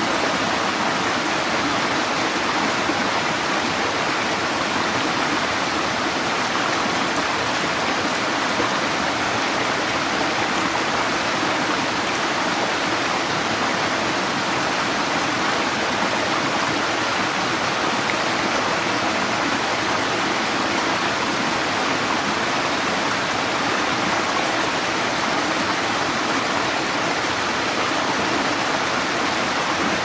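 Small creek cascade falling and splashing over rocks, a steady, even sound of running water.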